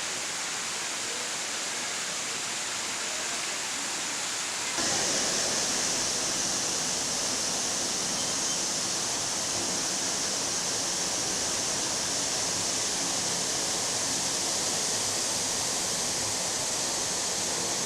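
Artificial waterfall splashing in a steady rush of falling water. About five seconds in it abruptly becomes louder and brighter, then holds steady.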